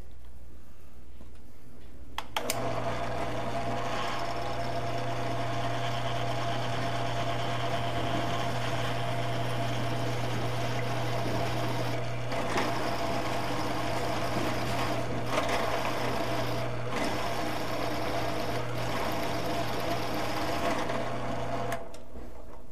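Millrite milling machine's motor and spindle running while drilling into steel box tubing: a steady hum with a higher whine, switched on about two seconds in and off near the end, with a few clicks along the way.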